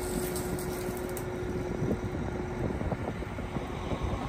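John Deere 8335R tractor's six-cylinder diesel engine running steadily, with a steady whine that stops about two and a half seconds in.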